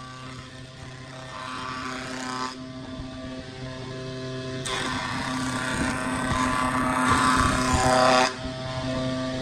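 A jointer running with a steady whine while a rough-sawn board is fed across its spinning cutterhead: a lighter cutting pass in the first couple of seconds, then a louder cutting pass from about five to eight seconds in.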